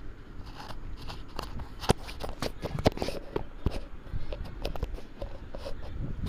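Peeled boiled eggs frying in hot oil in a kadai: the oil crackling and spitting around them, with sharp clicks and scrapes of a perforated metal spoon turning the eggs, the loudest about 2 and 3 seconds in.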